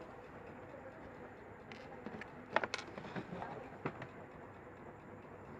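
A few light, sharp clicks or taps, a close pair about two and a half seconds in and another near four seconds, over a faint steady hum.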